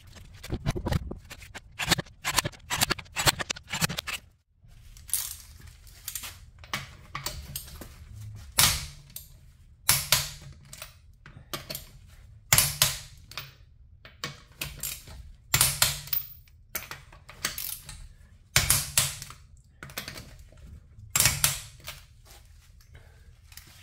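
Hand ratchet wrench clicking in short runs as bolts are turned, the runs quick at first and then coming about once every second or so.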